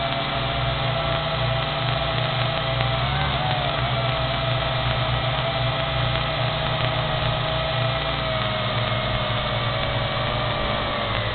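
Quadcopter drone's propellers and motors whining steadily over a low hum. The pitch wavers briefly as it manoeuvres and dips near the end.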